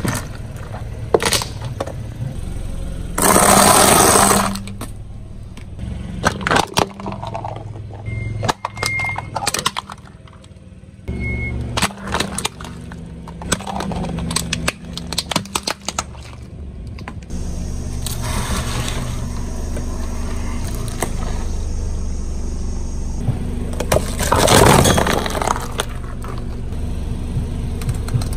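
A car's tyre rolling over objects and crushing them, with many sharp cracks and crunches over the car's low engine rumble. Two louder crunches lasting about a second each come about three seconds in and near the end.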